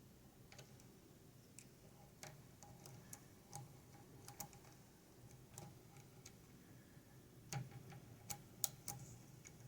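Faint, irregular small metallic clicks of a lock pick and tension wrench working the pins of a five-pin pin-tumbler lock, with a louder cluster of clicks near the end.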